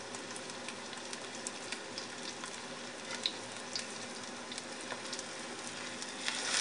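Panko-breaded pejerrey fillets sizzling in hot oil in a disco pan: a steady hiss with scattered small pops. The sizzle grows louder near the end as a fillet is turned over with tongs.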